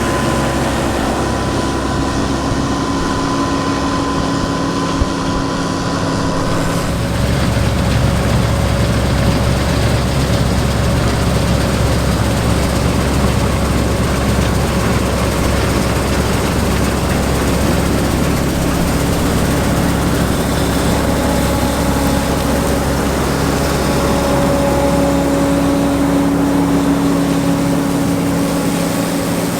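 Diesel engines of 1990s John Deere harvest machinery running steadily under working load in the field. About seven seconds in, the sound shifts to a deeper, louder engine note.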